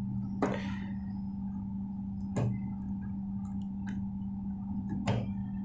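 A few scattered sharp clicks of nose pliers working tight spade connectors off the relay terminals of a microwave oven's control board, over a steady low hum.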